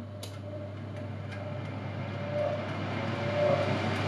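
Philips digital airfryer running just after being started: its fan spinning up, a steady hum with rushing air that grows louder. A few light clicks sound over it.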